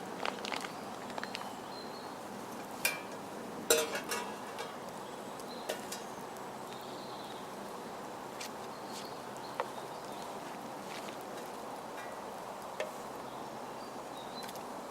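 Campfire crackling, scattered pops and snaps over a steady low hiss, with a cluster of louder pops about three to four seconds in. Faint distant bird chirps now and then.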